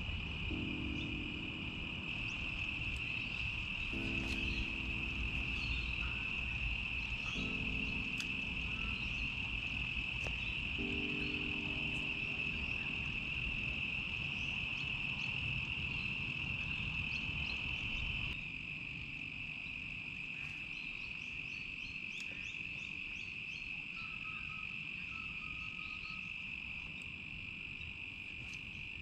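Steady high-pitched chorus of insects chirring without a break. A lower humming tone comes and goes four times in the first twelve seconds, and a low background rumble drops away about eighteen seconds in.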